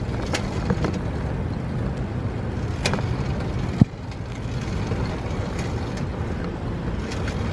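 Steady low rumble of wind on the microphone while riding a bicycle, with a few sharp clicks and knocks, the loudest about four seconds in.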